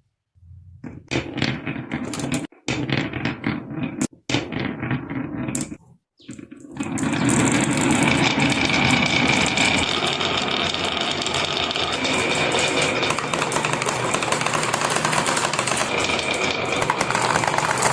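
Marbles rolling and clattering down a marble run, first in irregular bursts broken by short cuts, then from about seven seconds on a dense, continuous rattle of many marbles at once.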